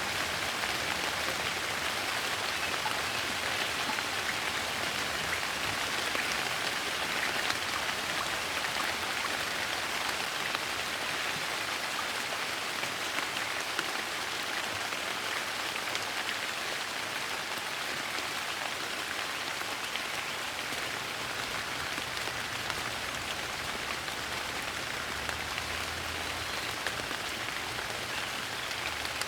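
Gentle rain falling steadily: an even hiss of many small drops pattering, with no change in strength.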